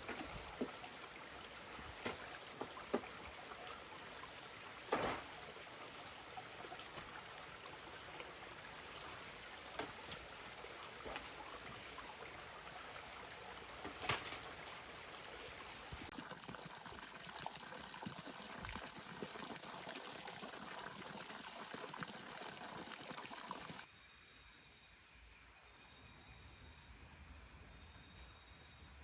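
Steady rushing or trickling water with a few sharp knocks. About 24 s in it changes abruptly to insects chirping in a steady high trill.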